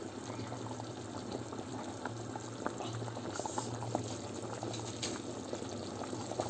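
Okra and lamb stew in thick tomato sauce bubbling in the pot, a dense crackle of small popping bubbles, with a low steady hum underneath.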